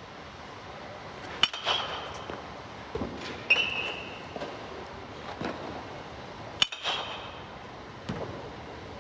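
Metal baseball bat hitting pitched balls three times, each contact a sharp ping that rings briefly, with softer thuds of balls landing in between.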